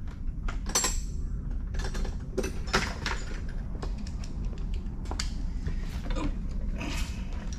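Socket wrench and hand tools clicking and knocking against the metal while a 10 mm bolt on the kart's front wheel is worked. The clicks come irregularly, with several louder knocks, over a steady low hum.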